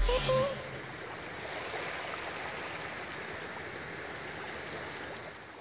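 Background music ends about half a second in. It leaves a steady wash of small lake waves lapping over a shallow, rocky shore, which fades out near the end.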